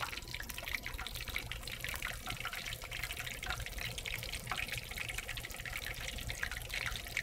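Hot oil sizzling and crackling steadily in a wok as a wrapped roll deep-fries in it.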